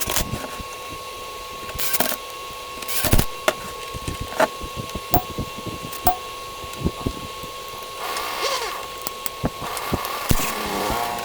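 Scattered sharp clicks and knocks of an air fryer's parts and tools being handled during a repair, with a few short rustles. A steady high whine runs underneath.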